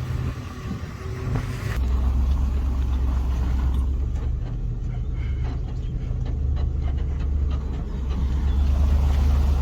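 A motor vehicle running with a steady low rumble that gets louder about two seconds in, with some light rattling ticks partway through.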